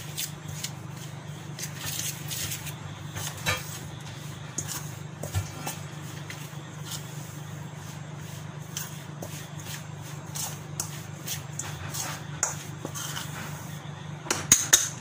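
A hand mixing flour into ghee in a stainless steel bowl: irregular soft rubbing and scraping, with a few sharper knocks against the bowl. A steady low hum runs underneath.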